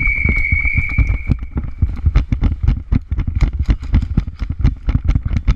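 A high, steady whistle-like tone for about a second, then a rapid, irregular string of sharp knocks and thumps as an airsoft player moves fast through the building.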